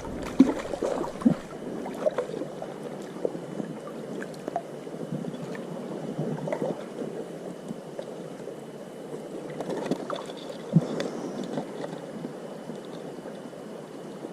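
Stream water running and splashing close to the microphone, with scattered small knocks and splashes; one is sharper near the end.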